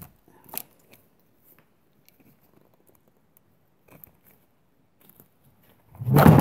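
Light clicks and small knocks of gloved fingers handling the plastic and metal parts of a chainsaw carburetor linkage while fitting the throttle cable, then a loud rustling burst near the end as the glove brushes close past the microphone.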